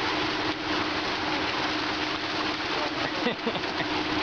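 A dense mass of fish thrashing and splashing at the surface of a crowded pen, giving a steady hiss of spatter like heavy rain on water. A steady low hum runs underneath.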